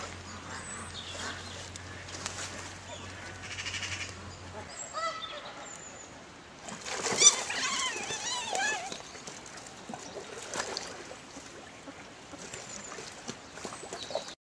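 Heron giving harsh honking squawks as an otter attacks and bites it, with the loudest run of calls about seven to nine seconds in.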